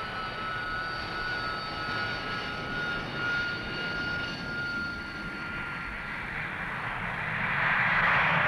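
Harrier jump jet's Pegasus vectored-thrust turbofan whining steadily at a high pitch. About six seconds in, a rising roar builds over the whine as the jet goes to full power for takeoff.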